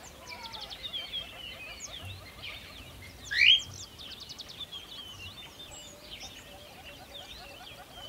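Caged cockatiels chirping and whistling in a busy chatter of short calls and quick rattling trills, with one loud rising call about three and a half seconds in.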